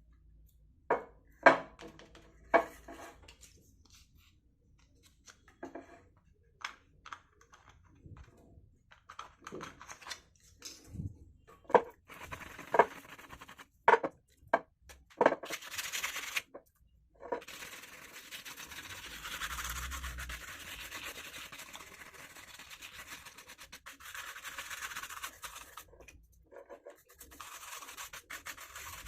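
Knocks and clicks of handling, then a steady rubbing and scrubbing from about halfway in, pausing briefly near the end: a loudspeaker being cleaned by hand.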